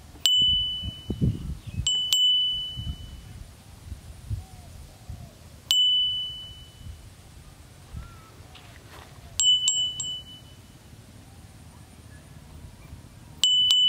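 Clear high metallic dings, like a small bell struck sharply, each ringing out for under a second. They come singly or in quick runs of two or three every few seconds, with some low rumbling noise in the first few seconds.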